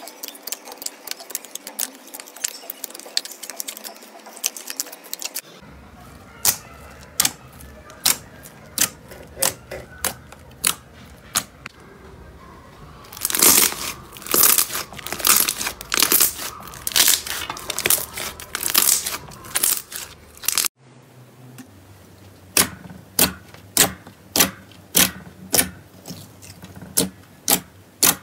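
Hands pressing and poking glossy blue slime, making wet squelching clicks and pops. A denser, louder run of popping comes in the middle, then evenly spaced pops, about one and a half a second, near the end.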